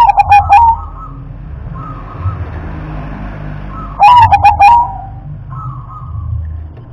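Zebra dove (perkutut) singing: two loud phrases of rapid, stuttering coos, one at the start and one about four seconds in, with softer single coos between them.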